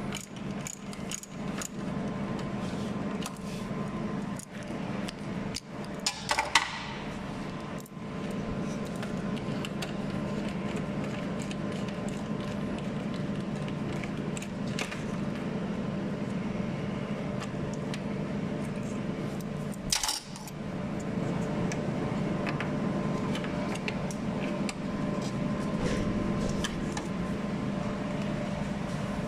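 Socket wrench clicking and metal tools clinking as a bolt on a car's radiator fan shroud is undone, with a sharp clink about six seconds in and another around twenty seconds, over a steady background hum.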